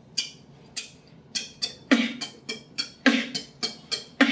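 Human beatboxing: an even beat of short, hissy hi-hat-like mouth sounds. From about two seconds in, deeper kick-drum-like hits come in roughly once a second.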